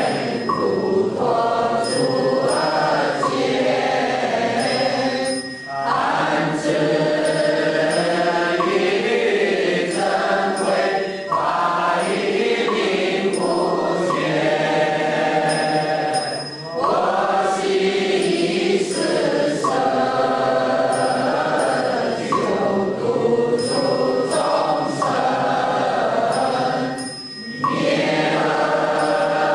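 Voices chanting a Buddhist text in unison, in long sung phrases with a short breath pause about every eleven seconds.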